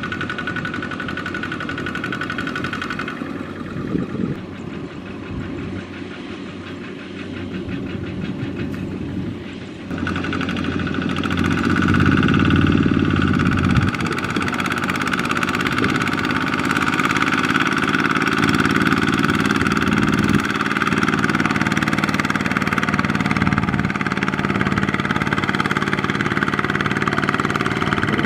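Kubota ZT155 power tiller's single-cylinder diesel engine running under load as it pulls a loaded rice trailer through sticky mud. It gets louder about ten seconds in, then revs up and back down.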